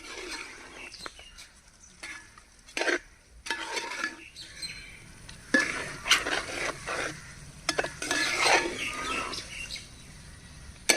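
A spoon stirring fried chicken pieces through thick masala in a pan, with irregular scrapes and knocks of the spoon against the pan.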